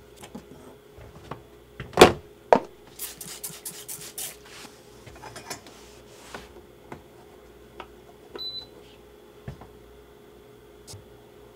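Scattered knocks and clatter of objects being handled, the loudest about two seconds in and a quick run of scraping strokes soon after, over a steady low electrical hum, with one short high beep about eight seconds in.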